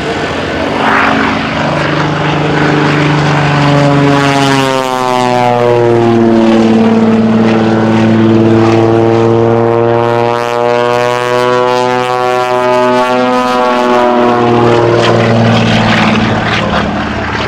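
Aerobatic biplane's piston engine and propeller droning through a display manoeuvre. It grows louder towards the middle and eases off near the end, with a swirling, sweeping change in tone as it passes close.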